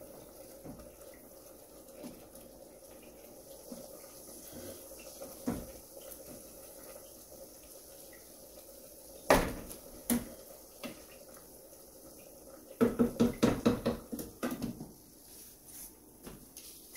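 Kitchen cookware clatter at the stove: pot, lid and utensils knocking, with two sharp knocks about nine and ten seconds in and a quick run of knocks lasting under two seconds near the end, over a faint steady hum.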